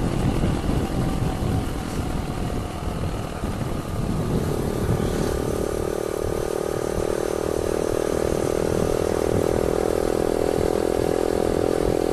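Yamaha YBR 125 single-cylinder four-stroke engine running under way, with wind rushing over the microphone. From about four and a half seconds in, the engine settles into a steady, even note.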